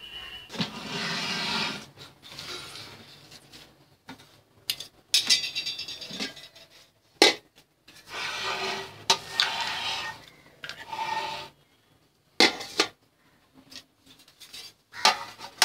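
Aluminium cookware being handled: rubbing and scraping sounds in bursts of about a second each, with a few sharp knocks of metal.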